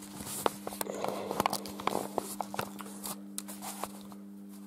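Footsteps with rustling and clicking handling noise from a handheld camera being carried and turned, busiest in the first half, over a steady low electrical hum.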